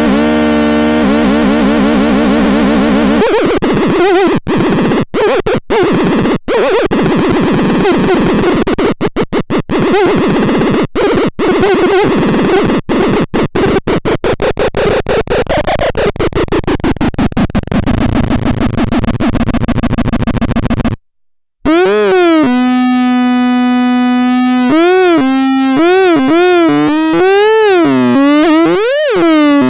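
Antisilvestron electronic sound generator: a harsh, noisy buzz chopped by rapid stuttering cut-outs. About 21 s in it goes silent briefly, then gives a clean pitched tone that slides up and down in pitch.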